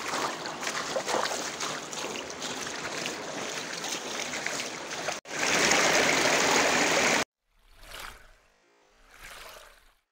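Footsteps crunching on the wet gravel bed of a canyon stream over running water. After a cut about five seconds in, a shallow stream rushes louder over rocks for about two seconds and stops abruptly, leaving only faint brief sounds.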